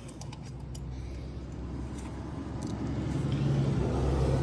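A motor vehicle's engine hum grows steadily louder, with a few light metallic clicks in the first second.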